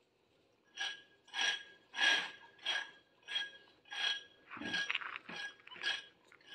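A dog snuffling and huffing in short, noisy breaths close to the microphone, about ten in a row, starting about a second in.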